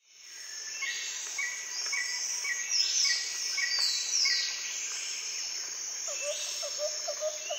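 Birds chirping over a steady background hiss: short chirps repeating about every half second, with higher falling calls mixed in. From about six seconds in there is a quick run of lower notes.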